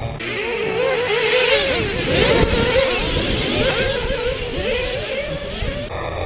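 Radio-controlled off-road buggy's motor, heard close up from a camera mounted on the car, its pitch rising and falling quickly as the throttle is worked. Near the end the sound cuts abruptly to a duller-sounding shot of the same kind of running.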